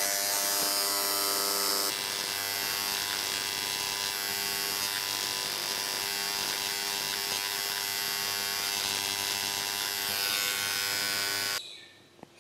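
Cheap corded electric engraving pen buzzing steadily as its tip marks the cast-iron block of a Holden 304 V8, then cutting off suddenly near the end.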